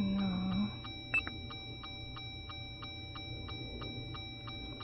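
Rapid steady electronic ticking, about five ticks a second, with faint steady high tones, from a 2021 Jeep Wrangler's cabin with the ignition on and the engine off. A brief low tone sounds at the start, and a single short high beep about a second in.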